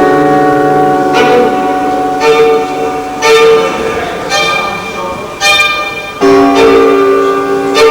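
Free improvised music by a violin and guitar duo: ringing notes struck about once a second, each sustaining over held tones, with a bell-like sound.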